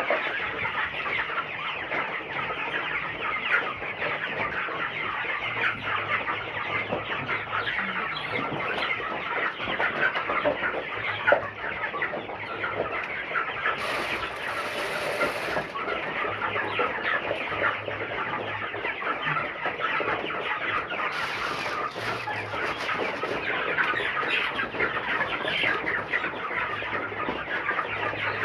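A large flock of broiler chickens, about four and a half weeks old, calling continuously in a dense chatter of overlapping peeps and clucks. A brief hiss sounds twice, about halfway through and again a few seconds later.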